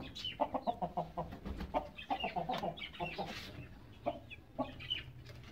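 Domestic hens clucking in quick short notes, with a few higher chirps among them; the clucking thins out near the end.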